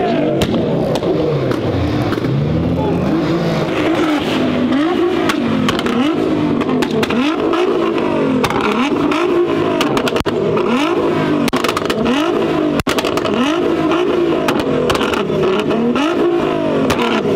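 Nissan GT-R's twin-turbo V6 with a Capristo exhaust being blipped repeatedly while stationary, about a dozen quick revs, each rising and falling, roughly one every second and a half. Sharp pops and crackles from the exhaust come between the revs.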